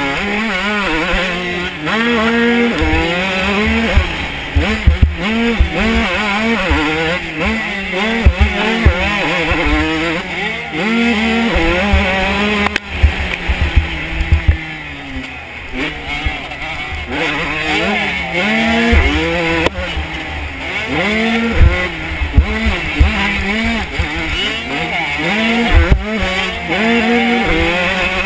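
Honda CR125 two-stroke motocross engine revving hard and falling off again and again as the rider works the throttle and gears, with a brief lull about halfway through where the revs drop away. Wind and bumps buffet the on-board microphone.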